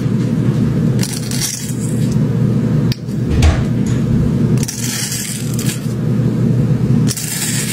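Apple snail egg clutch being crushed under a plastic measuring cup on a wooden board: crisp crackling crunches in about four bursts, over a steady low drone.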